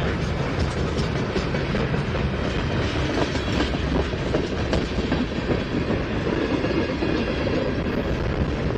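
Freight cars of a passing manifest train (lumber flatcars, tank cars, covered hoppers) rolling by at close range: a steady rumble of steel wheels on rail with faint scattered clicks.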